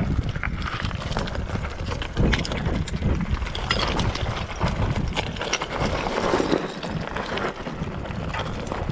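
Mountain bike rolling down a loose, rocky trail: tyres crunching and clattering over shale scree, with many sharp knocks and rattles from the bike, and a low wind rumble on the microphone.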